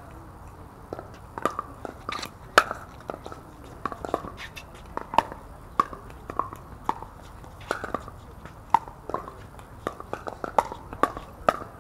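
Pickleball paddles striking a hollow plastic ball, with the ball bouncing on the hard court, during a soft dinking rally: a string of sharp pops about one or two a second.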